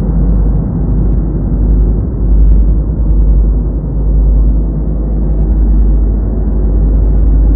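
Loud, bass-heavy soundtrack: a deep, steady rumble, muffled as if the treble were filtered off.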